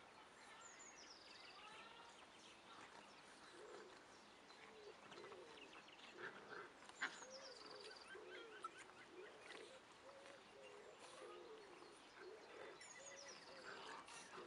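Boxer puppies at play, giving soft short grunts and whines over and over, while birds sing in the background with a repeated high phrase that slides down into a trill.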